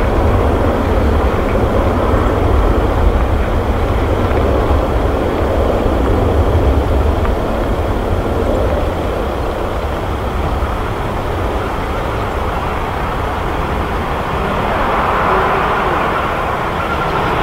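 Jet engines of a Boeing 747-400 freighter, four General Electric CF6-80C2 turbofans, at takeoff thrust during the takeoff roll: a steady, loud noise with a heavy low rumble, its upper part growing brighter near the end.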